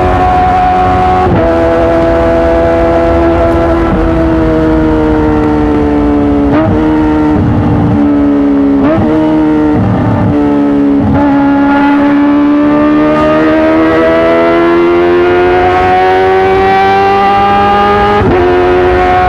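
Kawasaki ZX-25R 250 cc inline-four engine through an Arrow Works titanium full-system exhaust, running at high revs with a steady high-pitched wail. Its pitch steps down about a second in, sags slowly with a few brief breaks, then climbs steadily and steps up again near the end.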